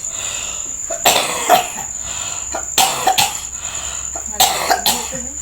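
Elderly man coughing hard in three bouts of about two coughs each, over a second apart: the severe cough he is being treated for.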